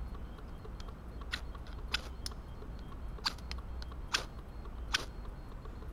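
Spine of a cheap folding knife scraped down a ferrocerium rod, about six short, sharp scrapes at uneven intervals, as a test of whether the spine will strike sparks.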